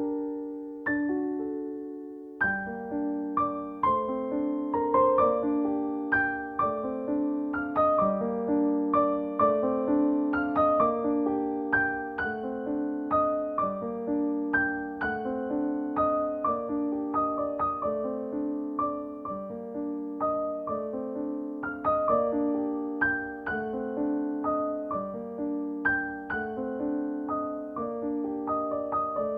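Background piano music: a gentle, steady stream of single notes and soft chords.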